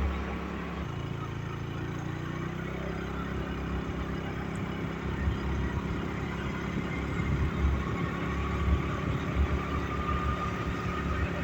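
Vehicle engine running with road noise while driving, its note rising slightly over the first few seconds.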